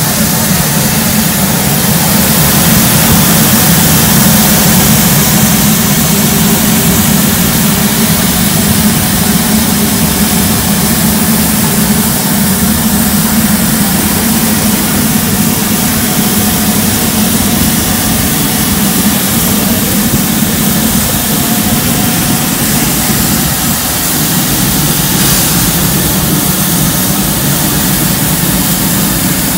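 LMS Black Five steam locomotive 44871 standing, with steam escaping from around the cylinders in a loud, steady hiss.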